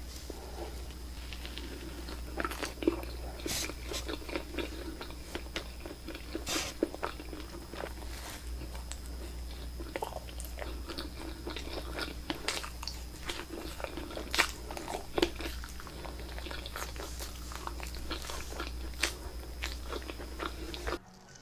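Close-up eating sounds of cloud bread being bitten and chewed: many sharp wet mouth clicks and crackles at an uneven pace over a steady low hum, cutting off suddenly near the end.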